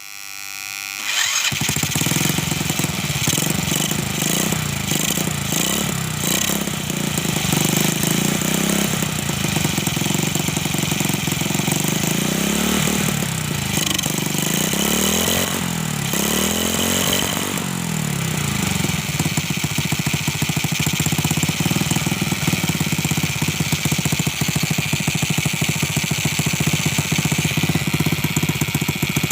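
Small motorcycle engine catching about a second in and then running on a homemade CDI ignition built from a horn relay. It is revved up and down a few times in the middle, then settles back to a steady idle.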